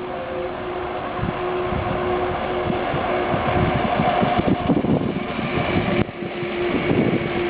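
A train passing close by: a steady rumble and rush of running gear with a steady hum in it, growing louder, with a sudden short break about six seconds in.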